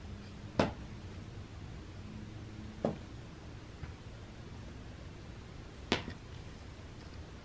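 Feather wand cat toy slapping and landing on a carpet: three sharp taps a couple of seconds apart, with a fainter one between the second and third.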